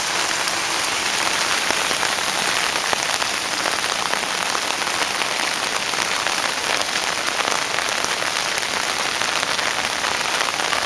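Steady rain falling on wet street pavement and puddles, a dense, even hiss of countless drop impacts with no letup.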